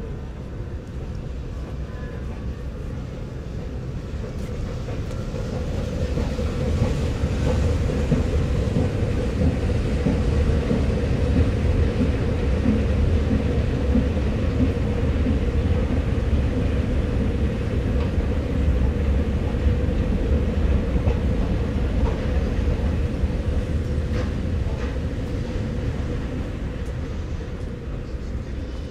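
A train passing: a low rumble that builds over the first several seconds, holds with a steady hum, then eases off near the end.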